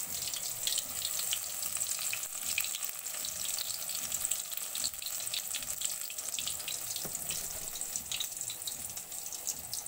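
Brinjal slices in gram-flour batter frying in hot oil: a steady sizzle full of small crackles.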